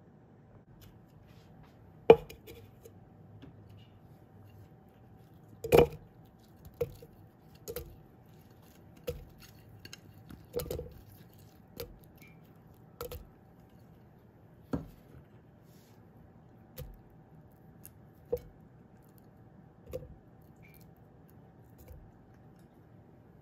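A plastic blender cup set down on a wooden board and fruit pieces dropped into it: about a dozen short knocks and taps at irregular intervals, the sharpest about two and six seconds in, over a faint steady hum.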